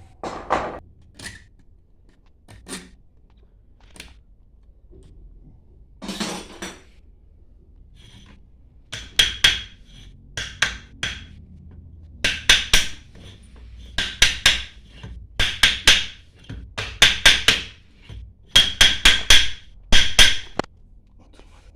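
Hammer blows on a metal pipe used as a drift, driving a part along the pump's new shaft until it seats against the circlip. A few scattered knocks at first, then from about halfway in, quick groups of three to five ringing metal strikes repeated every second or so.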